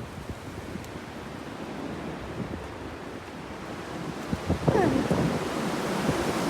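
Strong wind gusting and buffeting the microphone, growing louder about four seconds in, with a short higher-pitched sound near five seconds in.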